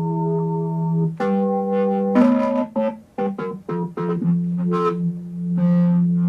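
Modal Skulpt synthesizer playing bank eight, preset four: a held low note, then from about a second in a run of notes at changing pitches, several short and bright, settling into another held low note after about four seconds.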